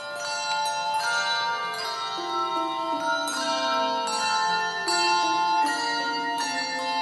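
Handbell choir ringing a tune in chords: struck bell tones start every half second or so and ring on, overlapping one another.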